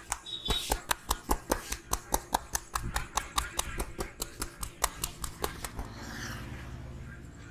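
Barber's hands slapping a head in a fast percussive massage: a quick, even run of sharp slaps, about five a second, that stops about six seconds in.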